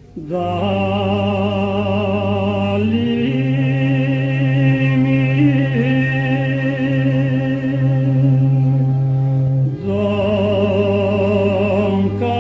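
Background music: long held sung notes with vibrato over a steady low drone, the melody moving to a new note a few times.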